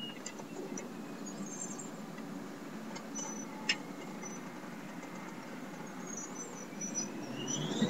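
Cummins 350 diesel in a Kenworth T600 running with a steady low drone. Over the last two seconds its turbocharger whistle rises sharply in pitch as the turbo spools up. There is a single sharp click midway.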